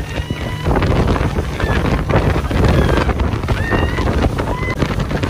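A speedboat's 100 hp outboard motor runs at speed under wind buffeting the microphone and the rush of the wake. Over it come several short, high-pitched shrieks from people out on the water.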